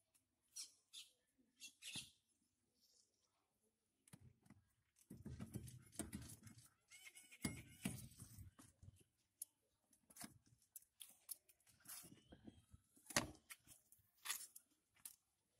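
Quiet, scattered clicks, taps and scraping of plastic and metal pipe fittings being handled and fitted by hand, with a couple of longer rustling, shuffling stretches.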